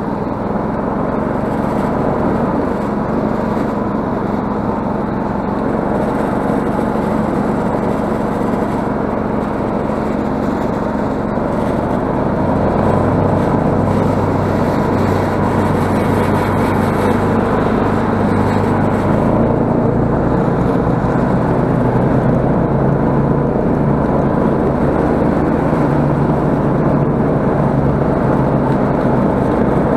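Snowmobile engine running steadily while being ridden along a snow track, getting a little louder about twelve seconds in.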